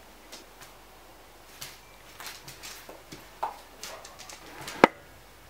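A dog pawing at a bug on a tiled floor: scattered light scuffs and taps of its paws and claws, with one sharp click near the end.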